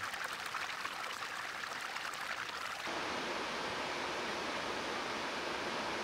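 Rushing water of a mountain torrent running over rocks. A little before halfway through it changes to a steadier, fuller rush.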